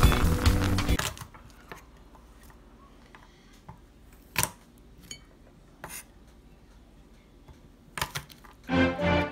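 Intro music ends about a second in, then a few light, sharp taps and knocks of crushed garlic cloves being handled on a wooden cutting board. Background music comes back in near the end.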